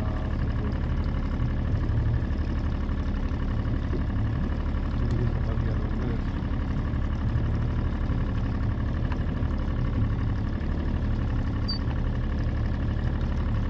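Boat engine running steadily at an even, low drone, with no change in speed.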